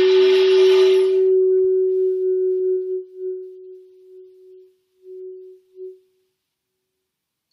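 Shakuhachi (Japanese end-blown bamboo flute) holding one long low note with a breathy, airy attack. The note fades, breaks into a few short wavering puffs and stops about six seconds in, closing a short improvisation.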